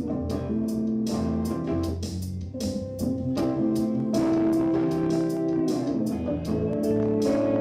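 Guitar music: melodic guitar notes over a bass line and a steady drum beat.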